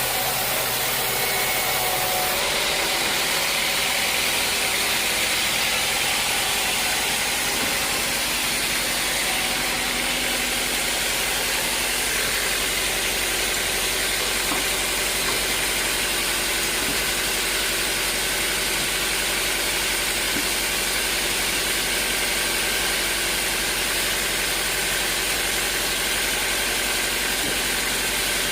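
Sawmill machinery running steadily, a loud even hissing mechanical noise from the log-sawing mill, with a slight change in its tone about two seconds in.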